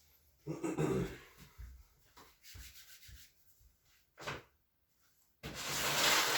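Rubbing and brushing sounds: a few short strokes, then a longer, louder one near the end.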